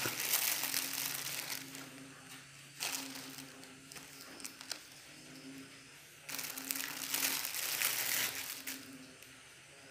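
Clear plastic packaging bags crinkling and rustling as baby clothes are pulled out and handled, in spells: at the start, briefly about three seconds in, and again from about six to eight seconds.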